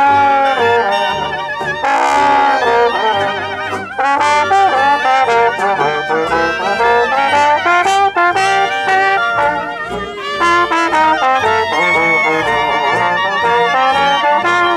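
Brass instruments, with trumpet and trombone, playing a tune over a bass line that steps from note to note.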